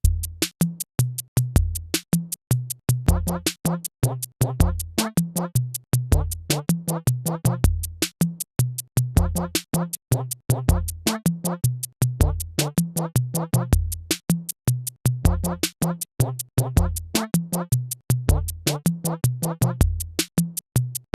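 Electronic music with a drum-machine beat: steady sharp ticks over a stepping synth bass line. It starts abruptly and cuts off at the end.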